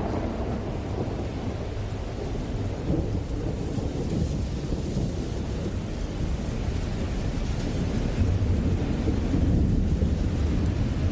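Thunderstorm: steady rain with deep, rolling thunder that swells about eight seconds in.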